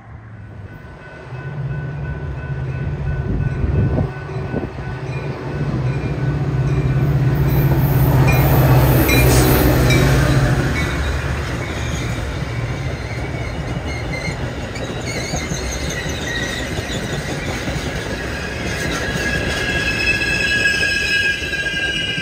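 Metra commuter train of bilevel coaches passing. A steady low engine drone builds to its loudest about nine seconds in and then fades, leaving the rumble of the rolling coaches and several high-pitched wheel squeals near the end.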